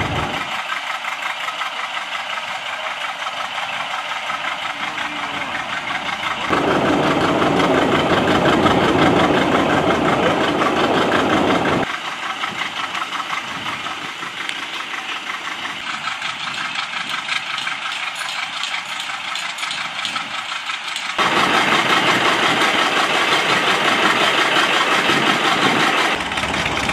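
John Deere 830 two-cylinder diesel tractor running under load, belted to the flywheel of a Buckeye oil engine to turn it over for starting. The sound steps up louder and heavier twice, each time for about five seconds.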